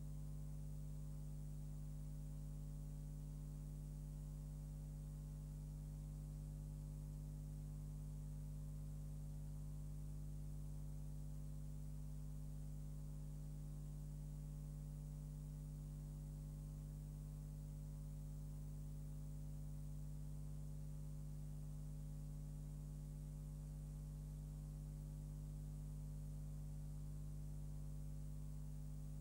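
Steady electrical mains hum of several stacked low tones, with a faint high hiss over it.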